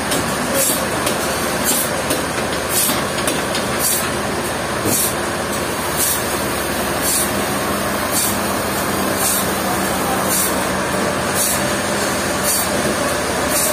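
Sawmill machinery running steadily with a loud, dense mechanical noise, and a short high-pitched hiss repeating about once a second.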